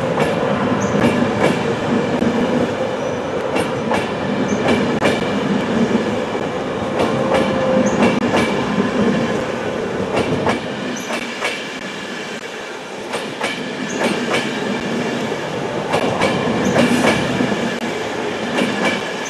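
LNER InterCity 225 train of Mark 4 coaches rolling past at close range, its wheels clicking over rail joints in a clickety-clack over a steady rumble. The deep part of the rumble eases about halfway through.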